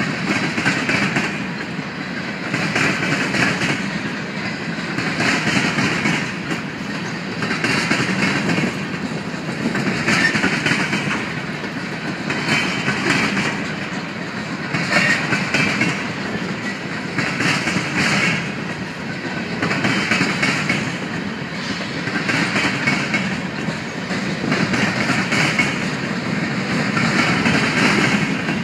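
Freight train of coal hopper cars rolling past on steel wheels. The wheel noise swells and fades as each car's trucks go by, about once every two and a half seconds.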